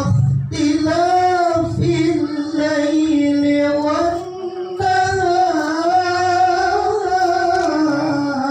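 A qori's solo melodic Quran recitation: one voice chanting long, held, ornamented notes, with a short pause for breath about halfway through. The voice is one the uploader describes as ruined by a cough.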